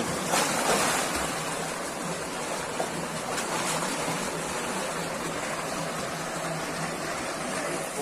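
A swimmer diving into a deep rock pool with a splash about half a second in, then splashing as he swims across it, over a steady rush of flowing water.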